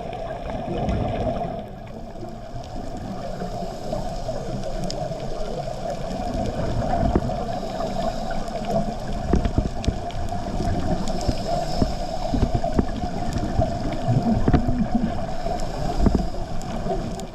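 Muffled underwater noise through a camera housing: a steady hum with irregular low rumbling, gurgling and small clicks, typical of a scuba diver's exhaled regulator bubbles.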